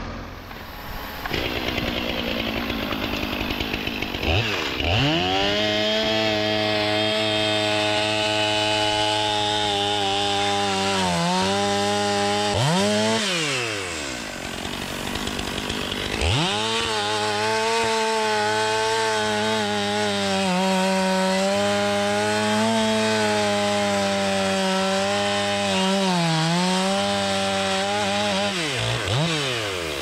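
Gas chainsaw revving up and cutting through a stack of slab wood at full throttle, its pitch sagging now and then as the chain bites. It drops back briefly about halfway, then revs up for a second long cut and falls off near the end.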